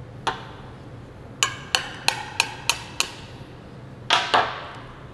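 Hammer striking metal, each blow sharp with a short metallic ring: one blow, then a run of six at about three a second, then two more close together near the end.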